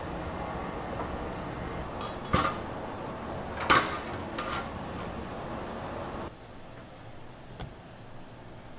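Steady kitchen background noise with three sharp clatters of kitchenware, the loudest about three and a half seconds in. The background drops to a quieter hush after about six seconds, with one more faint click near the end.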